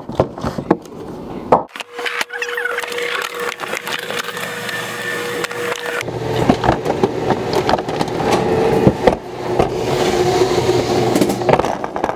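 Knocks, clicks and rubbing from a handheld camera being carried, over the general background noise of an airport concourse. The background changes abruptly about six seconds in.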